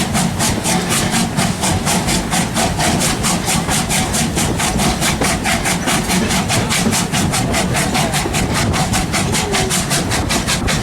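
Steam train running at speed: a constant low rumble with a fast, even beat of about five or six strokes a second.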